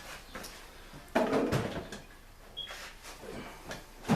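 Engine parts being handled in a pan of gasoline: a few light knocks and clicks, with one louder clunk about a second in that dies away over most of a second.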